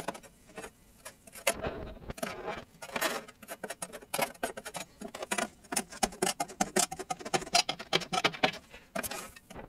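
Irregular scraping and clicking of a tool working in a griddle's metal grease trough, several strokes a second, getting busier about halfway through.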